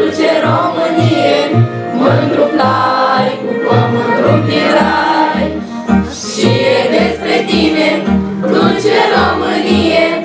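A choir of schoolchildren singing together over a recorded instrumental backing track from a portable loudspeaker, with a steady bass line whose notes change about twice a second.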